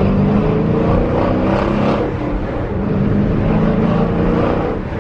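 Dodge Challenger R/T's 5.7-litre HEMI V8 running through a Borla ATAK cat-back exhaust, heard from inside the cabin while driving. The engine note rises and falls slightly.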